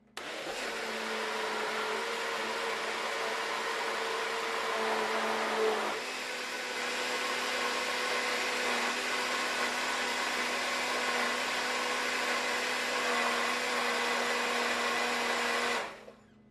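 Electric blender running steadily, pureeing roasted acorn squash with broth and cream into soup; its motor note shifts slightly about six seconds in, and it switches off near the end.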